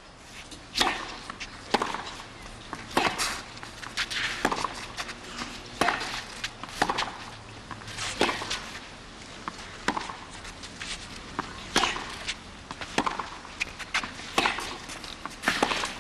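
Tennis rally on a clay court: a tennis ball struck back and forth by rackets and bouncing, sharp knocks coming roughly once a second.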